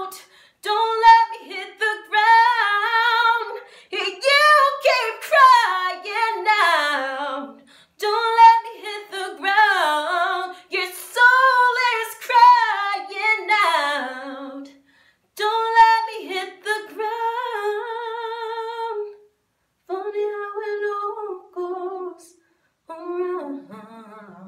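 A woman singing unaccompanied, in phrases of fast vocal runs and held notes with vibrato, with short breaks between them and growing softer over the last few seconds.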